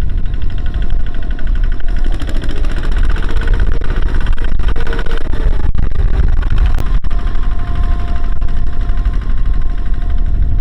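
Diesel engine of heavy earth-moving machinery running loud and steady, its firing a fast even chatter.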